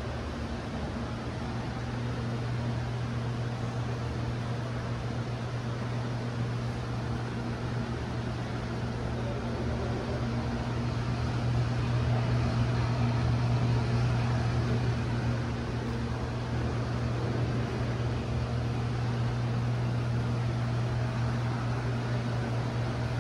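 Steady low machine hum over an even wash of noise, swelling slightly partway through.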